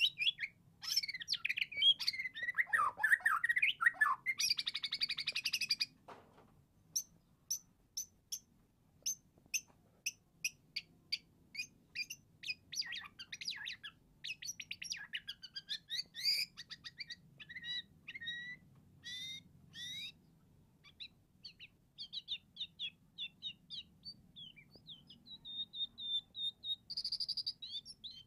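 Juvenile white-rumped shama (murai batu) singing. Strings of short, sharp chirps are broken by a long warbling phrase that starts about a second in and dips low before rising again, more warbled phrases midway, and a held whistle near the end.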